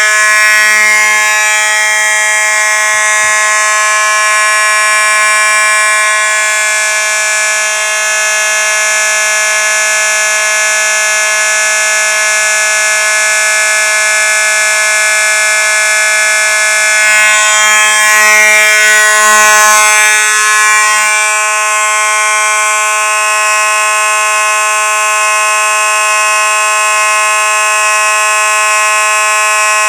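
Simplex fire alarm horn sounding a loud, steady, unbroken buzzing tone rich in overtones, with no pause or pulse. Some extra rustling noise joins it for a few seconds partway through.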